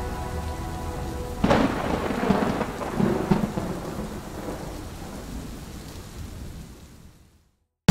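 Held music chords end, and about a second and a half in a thunderclap sounds. It is followed by rolling rumbles and a rain-like hiss that slowly fade to silence near the end.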